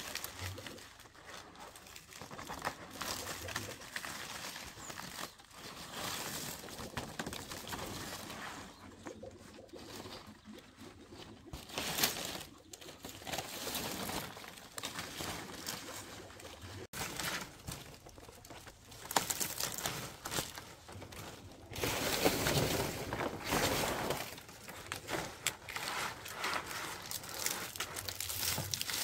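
Dry leaves rustling and crinkling irregularly as they are handled, with a few sharp knocks.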